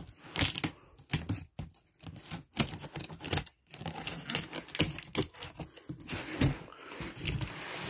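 Packing tape on a cardboard box being cut with scissors and torn open: irregular scratchy tearing and crinkling with sharp clicks.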